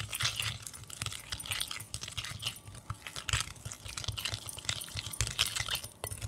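A plastic spoon stirring a wet spice-and-oil paste in a glass bowl, with irregular scraping and clicking against the glass, several strokes a second.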